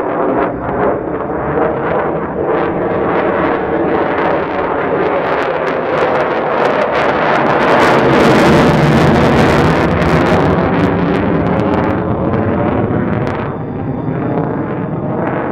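Lockheed F-35A Lightning II's single F135 afterburning turbofan at full power with afterburner lit: loud jet noise with sharp crackling. It builds to its loudest about eight to ten seconds in as the jet passes, then fades away.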